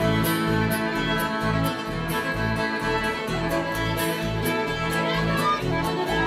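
Live bluegrass band playing an instrumental fiddle tune: twin fiddles carry the melody over upright bass on a steady two-beat pulse, with strummed guitar and mandolin.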